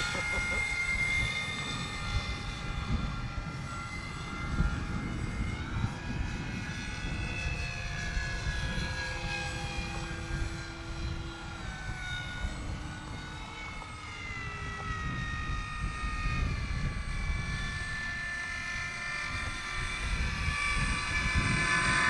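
Radio-controlled model airplane's engine and propeller droning overhead, the pitch slowly rising and falling as the plane flies about, with wind rumbling on the microphone.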